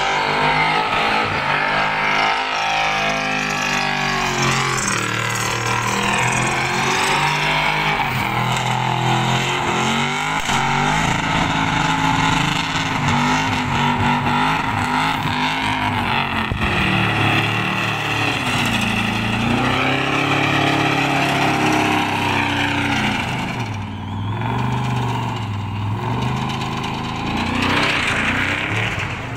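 Holden Commodore ute doing a burnout: the engine is held at high revs, rising and falling, while the rear tyres spin and screech on the pad. The revs drop and climb again a few times in the second half.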